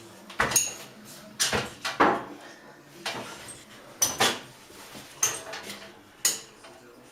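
Hard plastic and metal parts clicking and clinking as smoke-detector mounting parts and hand tools are handled, in an irregular string of sharp knocks with a short high ring on some.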